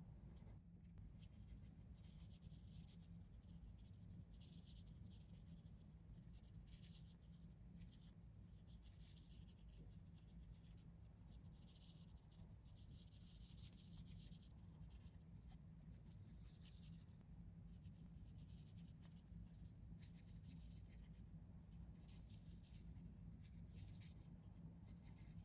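Faint scratchy rustling that comes and goes, over a low steady hum.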